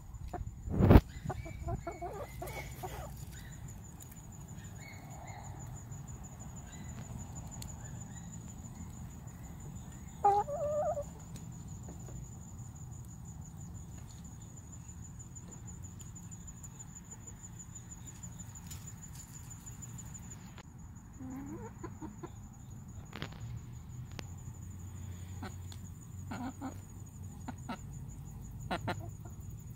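Domestic hens clucking now and then while they peck at grain on a compost pile, with a sharp knock about a second in, the loudest sound, and scattered light clicks.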